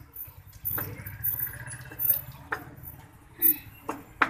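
Kitchen knife chopping vegetables on a wooden cutting board: a series of sharp, irregular knocks as the blade hits the board.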